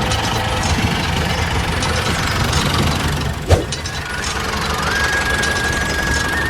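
Steady machine running noise, with a sharp click about three and a half seconds in. A high, steady whine starts near five seconds.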